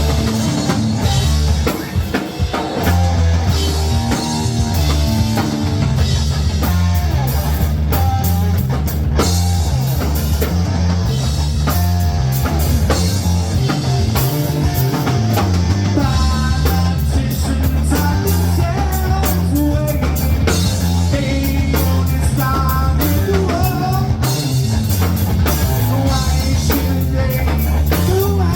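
Live rock band playing: drum kit driving a steady beat under a stepping bass line and guitar.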